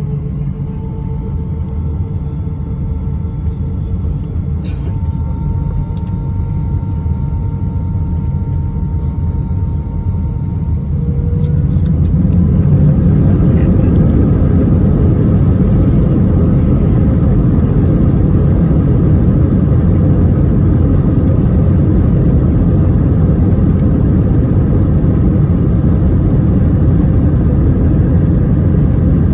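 Airbus A320's IAE V2500 jet engines heard from inside the cabin. Their steady whine rises gently, then about eleven seconds in they spool up to a louder, steady rumble: takeoff thrust being set.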